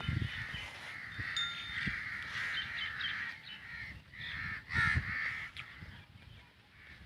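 Crows cawing over and over, several calls overlapping, with low thumps underneath and one louder thump about five seconds in.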